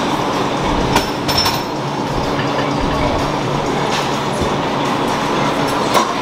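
Leg extension or leg curl machine in use: a steady rumble with a few sharp metallic clicks from the weight stack, about a second in, again shortly after, and at about four and six seconds.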